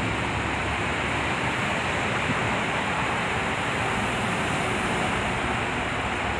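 Steady, even rushing noise with a faint high whine above it.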